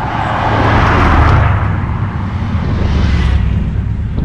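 A road vehicle driving past close by, its tyre and engine noise swelling to a peak about a second in and then fading away over a steady low rumble.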